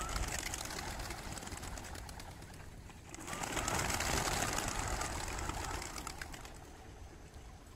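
Racing pigeons taking off from opened transport crates, a flurry of flapping and clapping wings that swells about three seconds in and fades toward the end.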